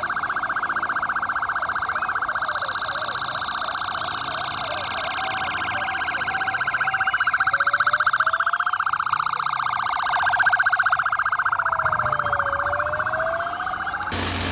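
Police motorcycle siren sounding a fast, rapidly pulsing warble. It cuts off abruptly near the end, giving way to a steady engine hum.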